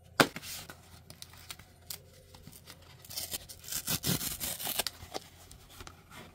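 A cardboard CD mailer set down with one sharp tap, then its tear strip ripped open along the cardboard edge for about two seconds, with scratchy handling of the cardboard.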